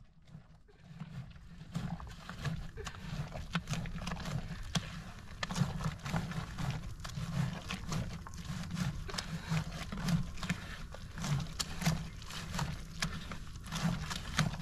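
Hand squashing pomegranate seeds against a metal strainer in an aluminium bowl to press out the juice: wet squelching and rubbing of the pulp, with repeated low thumps from the pressing and many small clicks of seeds on the metal.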